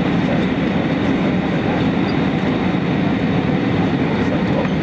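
Jet airliner cabin noise in flight: a steady, even rush of engine and airflow sound heard from inside the cabin, deepest in the low range and without any change.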